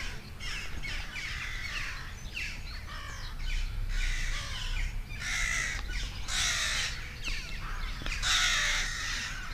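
Crows cawing repeatedly among other birds calling, with the harshest, loudest caws coming a little past halfway and again near the end.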